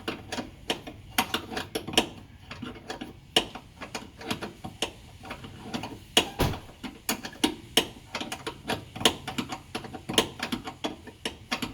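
Ratcheting wrench clicking in short back-and-forth strokes, several clicks a second, as it works a tight door hinge bolt that leaves only a little swing room.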